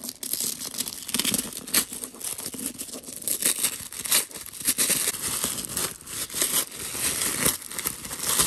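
White tissue paper being crinkled and torn off a gift box by hand: continuous rustling with many sharp crackles.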